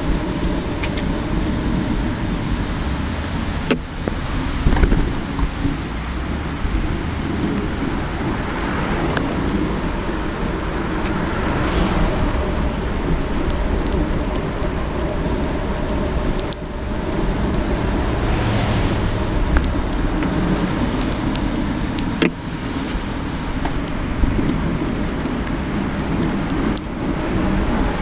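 Steady rushing noise of a moving bicycle heard from a handlebar-mounted camera: wind over the microphone and tyres on the pavement, with a few sharp knocks.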